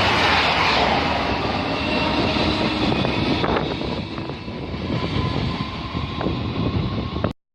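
A train passing on the main line: a loud rolling roar of wheels on rail with a faint steady whine and a few sharp clicks, slowly easing as it draws away, then cut off suddenly near the end.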